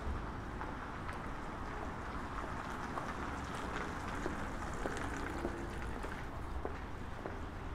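City street ambience: a steady hum of traffic with scattered small clicks and knocks.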